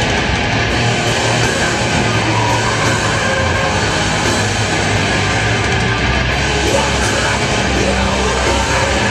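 Heavy metal band playing live, loud and dense, with no let-up.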